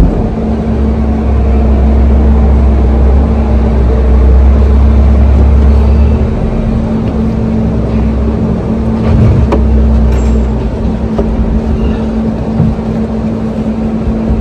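A steady mechanical hum with a deep rumble, loudest through the first six seconds and again from about seven to ten seconds in, with a few faint knocks.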